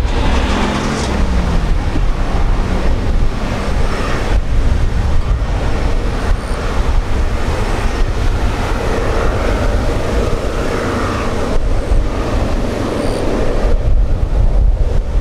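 Jet engine roar of a Boeing 787-8's Rolls-Royce Trent 1000 turbofans as the airliner climbs away after takeoff: a steady, deep rumble.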